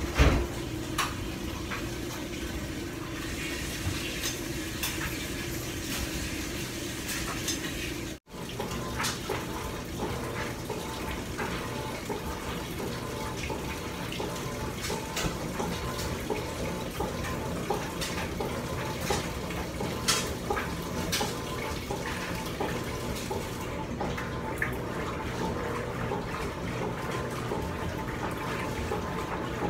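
Water running into a Whirlpool top-loading washing machine as it fills, a steady rush with scattered small clicks and knocks of the machine and clothes being handled. The sound cuts out for a moment about eight seconds in.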